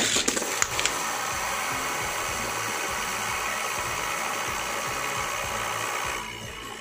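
A Beyblade Burst top launched into a clear plastic stadium: a loud clatter of the launch and the top landing, a few skittering clicks, then the steady whirring hiss of the top spinning on the stadium floor. The whir drops to a quieter level about six seconds in.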